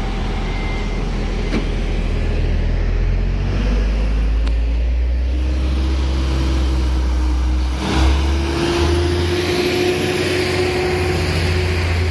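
Stadler GTW diesel multiple unit pulling away from a station: a steady low engine rumble with a hum that slowly rises in pitch as it gathers speed. From about eight seconds in, the rolling noise of the passing cars grows louder.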